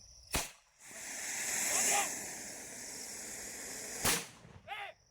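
A firecracker of the kind used to drive off elephants: a sharp crack, a loud hiss that swells and fades over about three seconds, then a second sharp bang.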